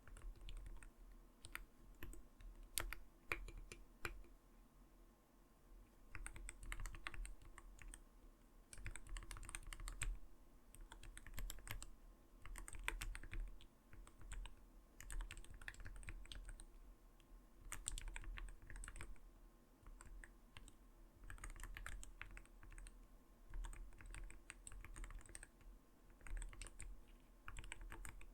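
Typing on an Arbiter Studio Polar 65 mechanical keyboard with clear keycaps: quick runs of keystrokes with a soft, not-too-light "koto-koto" clack, broken by short pauses, with a sparser stretch about four to six seconds in.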